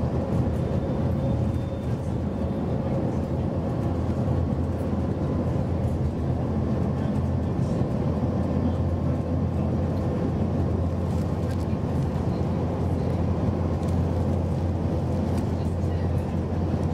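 Scania Enviro400 double-decker bus cruising at a steady speed, heard inside the passenger cabin: a steady low drone from its five-cylinder Scania diesel engine, with tyre and road noise.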